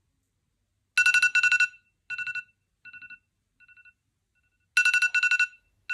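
Smartphone alarm going off: trains of rapid, high-pitched beeps, each loud train followed by fainter repeats like echoes. It starts about a second in and starts over again about four seconds later.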